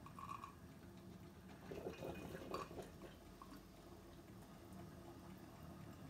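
Moccamaster drip coffee maker heating its water: faint gurgling and bubbling, with a short burst of gurgles about two seconds in, as the brew cycle gets going.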